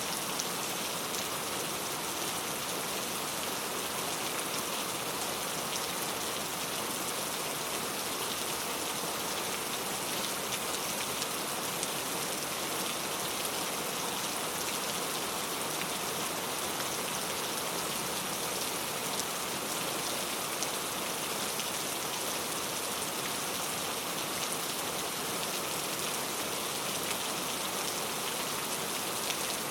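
Steady rain falling, a constant hiss with fine drop ticks and no thunder.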